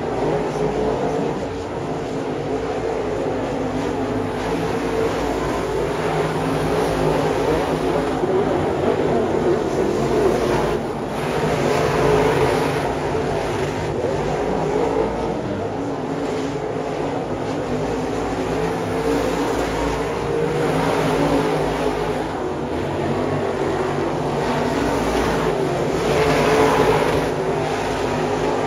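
Dirt late model race cars' V8 engines running together as the cars circle a dirt oval track, a steady drone that swells and fades a little as the cars pass.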